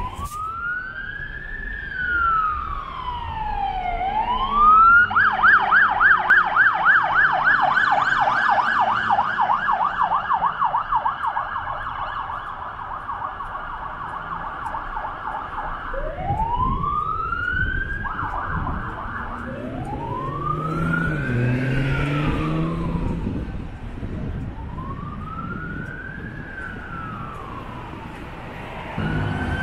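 LAFD fire department emergency vehicles' electronic sirens sounding through traffic. A slow rising-and-falling wail switches to a fast yelp about five seconds in, which is the loudest stretch, and back to the slow wail at about sixteen seconds. A second siren overlaps briefly around two to four seconds in.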